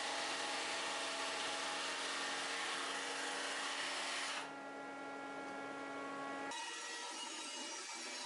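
Drum sander running, sanding a board on its conveyor belt: a steady motor tone under a loud, hissing grind that drops away a little after four seconds as the board comes out from under the drum. About two seconds later the sound changes abruptly to a bandsaw cutting wood.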